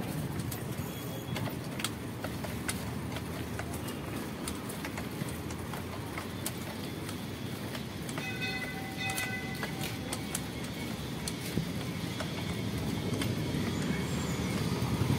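Mountain bike rolling fast over a rough concrete lane: a steady rumble of tyres and wind on the microphone, with the bike rattling in many quick clicks. About eight seconds in, a horn-like tone with several pitches sounds for about a second and a half.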